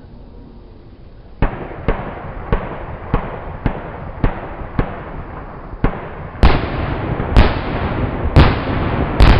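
Fireworks display: after a quiet first second, a regular run of sharp bangs about twice a second, then from about six seconds in louder bangs over a continuous crackle.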